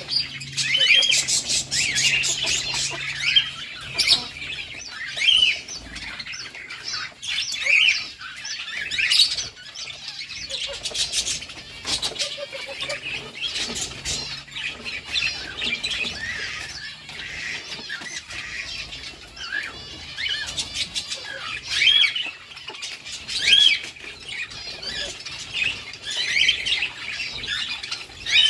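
A flock of lovebirds chattering non-stop with overlapping high, shrill chirps and squawks, with bursts of wing flapping.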